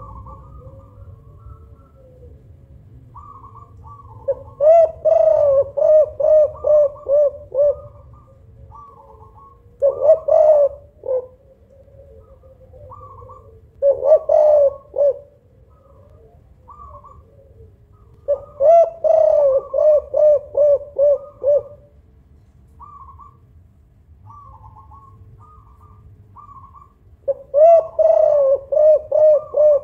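Spotted dove cooing in five bouts of quick repeated coos, the longer bouts lasting three to four seconds. Fainter short higher chirps fall in the pauses between bouts.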